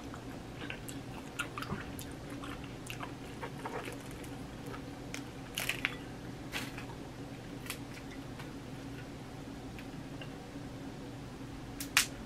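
Close-up eating sounds of boiled crawfish: chewing and lip smacks, with crackles as crawfish shells are pulled apart by hand. There is a sharp louder crack near the end.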